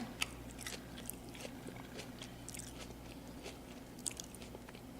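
Faint, scattered small clicks and taps of plastic Play-Doh toy pieces being handled as dough is pushed into the extruder, over a low steady hum.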